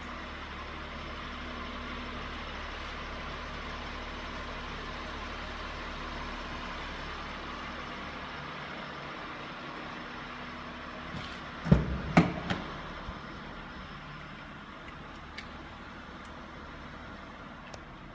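2003 Honda Pilot's 3.5-litre V6 idling steadily. About two-thirds of the way in, two loud clunks come half a second apart as the car door is opened.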